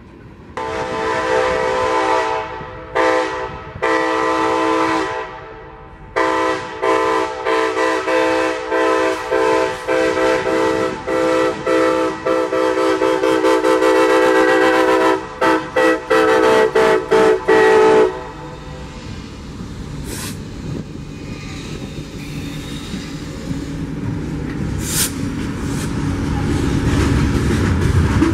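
Diesel freight locomotive's air horn sounding a chord in a series of blasts, a long held blast in the middle and short ones after it. It then stops, and the lead units pass close with a growing rumble of engines and wheels. The locomotive is an SD70ACe-T4.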